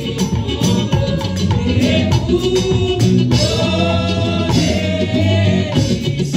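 Amplified church worship singing: a woman leads a song of praise to Jesus through a handheld microphone, with other singers joining, over a steady beat.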